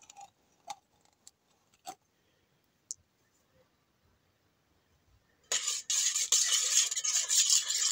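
A few light clicks of a spoon against a stainless steel mixing bowl, then, from about five and a half seconds in, a metal utensil stirring briskly around the bowl with steady scraping and clinking, mixing tomato paste into a thin tomato sauce.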